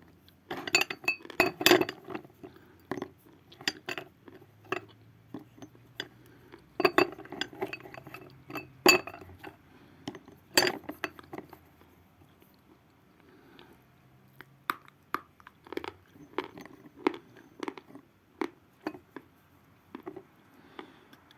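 Lumps of natural chalk being crushed into small pieces in a dish: irregular sharp clinks and crunches, coming thick in the first half and more sparsely later.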